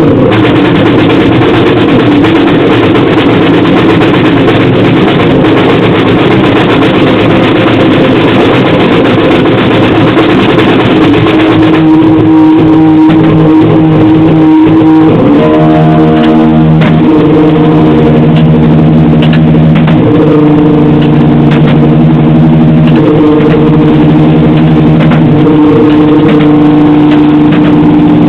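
Harsh, heavily distorted noise music at full level. A dense wall of noise runs for about the first twelve seconds; from about fifteen seconds in, sustained distorted tones take over, shifting in pitch every second or two.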